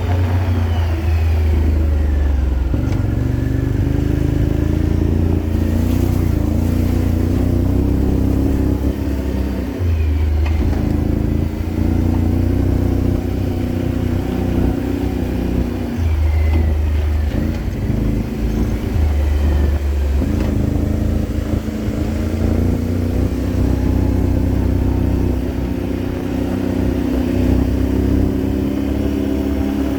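Can-Am off-road vehicle's engine running while driving, steady for long stretches, with the engine note dropping and picking up again a few times, around ten, sixteen and twenty seconds in.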